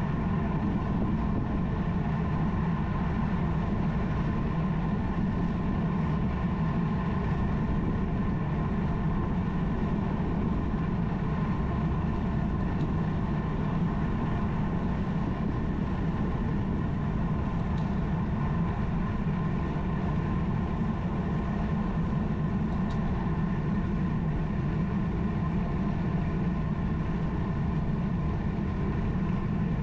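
A steady mechanical hum with a few held tones over it, like a motor running at constant speed.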